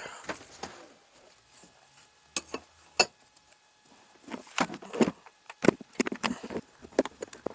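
Irregular clicks, taps and knocks of a plastic quick-release bar clamp and a metal ring spanner being handled and fitted against a 125cc motorcycle cylinder head, set up as a makeshift valve spring compressor. A few isolated knocks come first, then a busier run of clicks in the second half.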